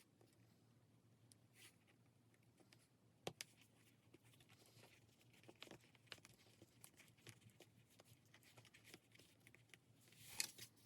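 Faint scratching and light taps of a pen drawing on paper, with a sharper tick about three seconds in and a brief louder scrape near the end.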